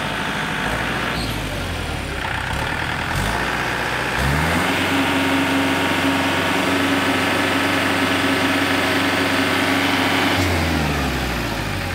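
Kubota L4508DI tractor's 45 hp direct-injection diesel engine idling, then revved up about four seconds in and held at high revs for some six seconds before dropping back to idle near the end.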